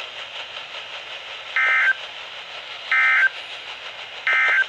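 NOAA Weather Radio SAME end-of-message signal: three short bursts of warbling digital data tones about a second and a half apart, over steady radio static hiss. It marks the end of the warning broadcast.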